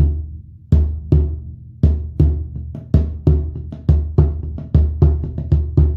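Snare drum struck in a fast, uneven galloping pattern of about three strokes a second, grouped in short clusters that come a little closer together toward the end. It imitates a heart's gallop rhythm: the first and second heart sounds plus added third and fourth sounds, as heard in a racing heart in heart failure.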